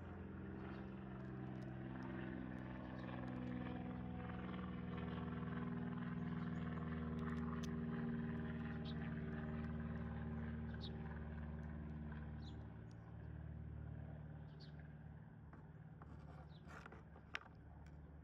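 Steady low engine hum, like a motor vehicle's, that swells over the first several seconds and then fades away, with faint scattered ticks and one sharp click near the end.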